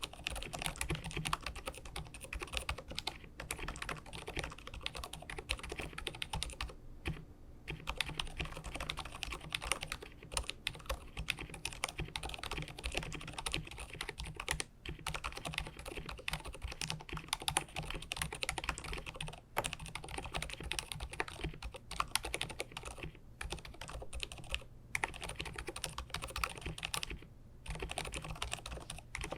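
Continuous typing on an mStone Groove T Purpler mechanical keyboard with hand-lubricated silent 45g Milky switches, dampened inside with silicone and felt: soft, muted key clicks in a quick stream, with a few short pauses.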